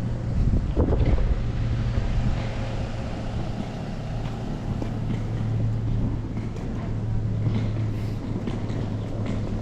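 Steady low mechanical hum under street noise, with wind buffeting the microphone about a second in.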